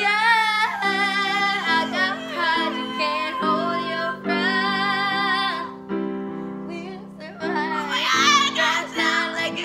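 Two female voices singing a pop ballad duet, with vibrato on the long held notes, over sustained piano chords.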